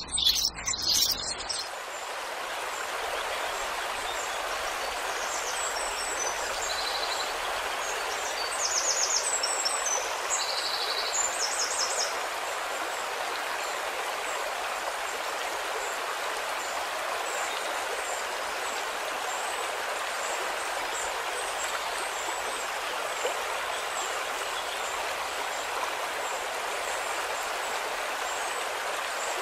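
Steady rushing of running water, like a stream, with a few short high chirps between about six and twelve seconds in.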